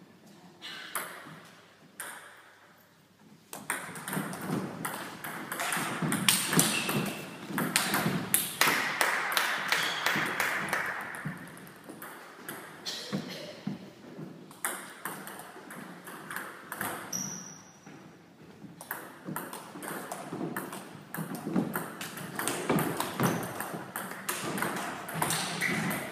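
Table tennis ball being played in rallies: sharp, quick clicks as it strikes the rubber paddles and bounces on the table, starting about three seconds in after a short lull.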